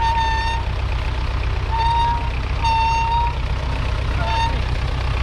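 Massey Ferguson 35's 2.5-litre four-cylinder diesel engine running steadily as the tractor works with its mounted plough. A high, steady-pitched tone sounds several times over it, each for under a second, at uneven gaps.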